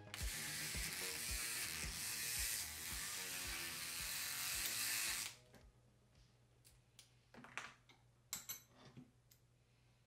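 An electric toothbrush converted into an electric lock pick buzzing as its metal pick tip vibrates against the pins of a brass padlock, over background music with a steady beat. About five seconds in, the buzz and the music stop together, leaving a few faint metallic clicks from the padlock and the tension wrench being handled.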